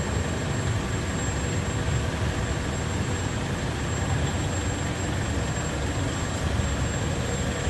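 Aluminum melting furnace running: a steady, even rumble and hiss, heaviest at the low end, with a thin high steady whine over it.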